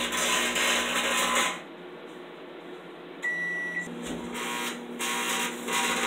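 Aluminium foil arcing inside a running Samsung microwave oven: loud crackling over the oven's steady hum, which both stop about a second and a half in. Near the middle a single keypad beep, the oven hum starts again, and the crackling returns near the end.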